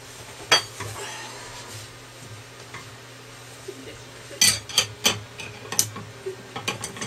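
Metal hand tools and parts clinking and clanking: one sharp clank about half a second in, then a quick run of clinks about four and a half to six seconds in.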